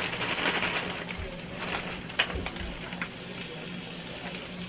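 Frozen hash browns sizzling on the hot non-stick plates of an electric double omelette maker, with a few light clicks as pieces are dropped in, the sharpest about two seconds in.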